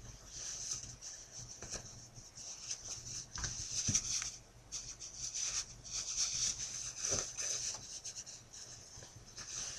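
Sling fabric rustling and rubbing in irregular patches as a ring sling is handled and tightened around a baby, with a few soft thumps.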